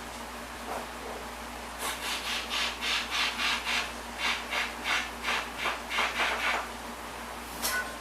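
Rhythmic back-and-forth rubbing or scrubbing by hand on a surface, about three strokes a second, starting about two seconds in and stopping at about six and a half seconds.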